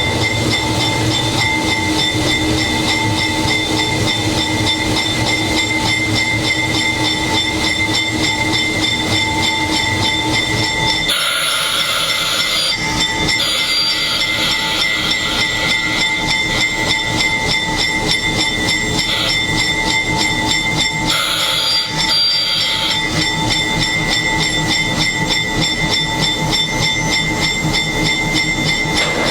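Diesel engine of a GE 80-ton switcher locomotive running steadily, heard from inside the cab as the locomotive slows to a stop. Two short bursts of air hiss come about eleven and twenty-one seconds in, and the low engine rumble drops away after the first one.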